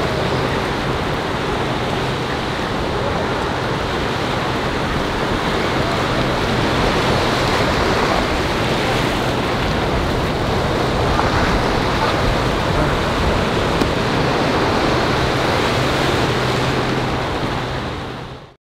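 Ocean surf breaking and washing over a rocky shoreline, a steady rushing noise that fades out near the end.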